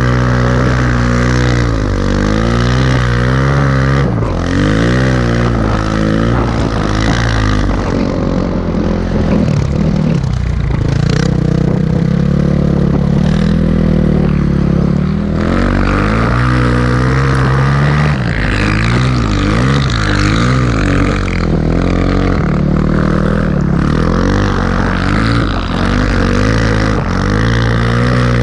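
Dirt-bike engine of a snowbike on a Timbersled track kit, revving up and down continuously while riding through deep powder. Its pitch drops briefly about ten seconds in, then climbs again.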